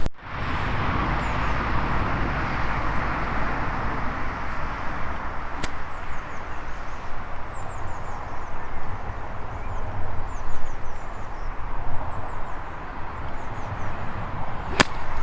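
Steady rushing outdoor background noise with a low rumble, with small birds chirping faintly high above it. Two sharp clicks stand out, one about six seconds in and one near the end.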